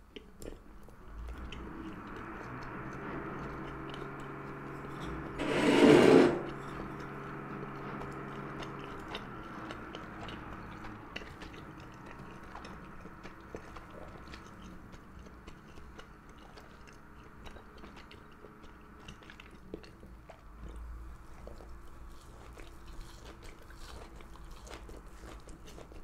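Close-miked eating: chewing and small clicks of rice and gondre greens. Under it a steady machine hum runs from about a second in until about fifteen seconds and returns faintly near the end. A loud rushing noise lasts about a second around six seconds in.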